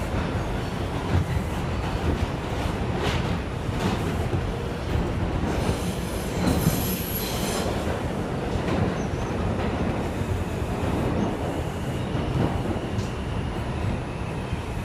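R142 subway car running between stations, heard from inside the car: a steady rumble of wheels on rail, with a few clicks and a brief high wheel squeal about six to seven seconds in.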